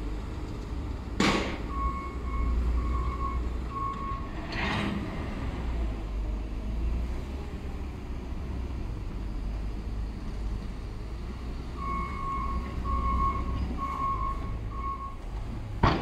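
Caterpillar wheel loader with a snow blade: its diesel engine runs with a steady low rumble while its backup alarm beeps in two short runs of about one beep a second, the sign that it is reversing. Sharp knocks come about a second in, near five seconds and at the very end.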